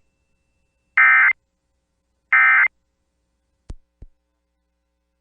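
Emergency Alert System SAME end-of-message (NNNN) data bursts: the last two of three short buzzy digital screeches, spaced a second apart, which mark the close of the alert. They are followed, about a second and a half later, by two quick faint clicks.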